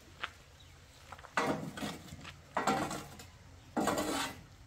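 Kitchen handling noise from bread-making work: a small click, then three short rough strokes a little over a second apart.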